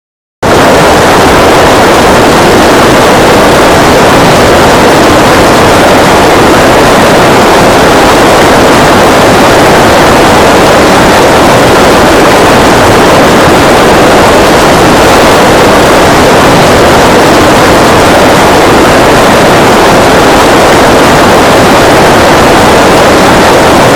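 A loud, steady rushing roar of even noise with no tone or rhythm; it cuts in abruptly just after the start.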